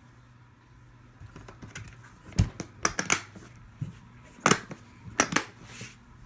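A series of sharp clicks and knocks, about six in all, from handling a hardshell guitar case with the guitar just fitted inside it.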